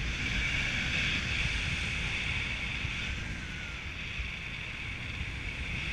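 Wind rushing over the camera microphone of a paraglider in flight: a steady hiss and buffeting that eases slightly in the middle.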